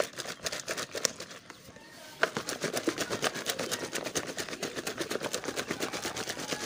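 Plastic bottle packed with chopped peels and water being shaken by hand to mix them: a few scattered knocks, then from about two seconds in a quick, even rattling of the contents against the plastic.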